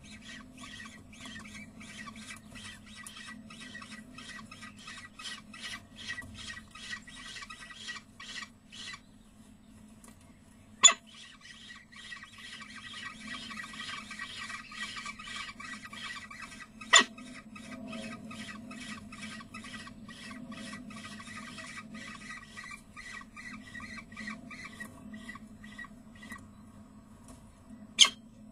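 Peregrine falcon chicks begging with rapid, repeated high-pitched calls as they are fed, with a couple of short pauses, over a steady low hum. Three sharp clicks stand out, about a third of the way in, just past halfway and at the very end.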